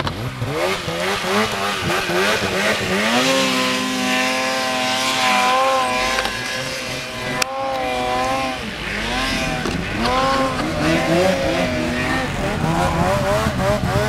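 Several snowmobile engines revving at once, their pitch wavering and rising and falling, as riders try to work sleds stuck in deep snow free.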